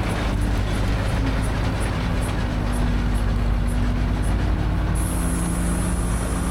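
Restored 1913 Lorraine steam shovel working, giving a steady low mechanical rumble. A high hiss, like escaping steam, starts about five seconds in.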